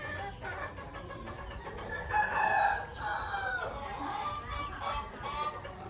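A rooster crows once, a call of about a second and a half starting about two seconds in, amid the clucking of chickens.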